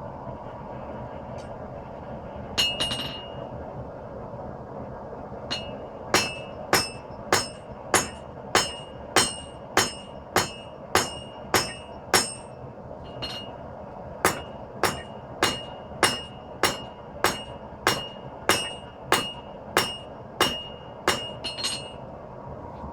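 Hand hammer striking hot 5160 spring steel on an anvil, about one and a half blows a second in two runs with a short break between, each blow ringing. A steady rush of a gas forge burner runs underneath.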